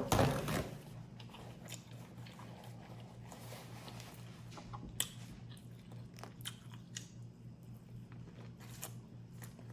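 Close-up eating sounds: biting and chewing crawfish-boil food, with a loud bite at the start, then scattered sharp clicks and smacks, over a steady low hum.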